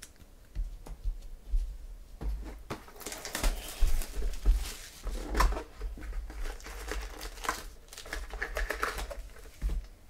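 A cardboard Panini Chronicles baseball card hobby box being opened and emptied by hand: wrapper and foil packs crinkling and rustling, with clicks and dull bumps on the table. It is busiest in the middle and settles near the end.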